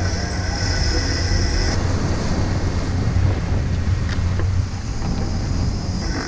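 Steady low rumble of a ship's machinery under wind buffeting the microphone, with sea water rushing and splashing at the stern.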